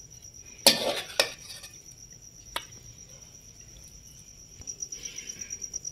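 Crickets chirping in a steady high trill, which pulses rapidly near the end. About a second in, a metal ladle scrapes and knocks against an aluminium cooking pot and a clay bowl while saag is served, and there are a couple of sharper clinks after it.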